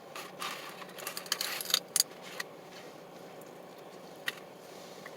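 Eating sounds close to the microphone: a run of small clicks and crackles of chewing and handling food in the first couple of seconds, then one more click later.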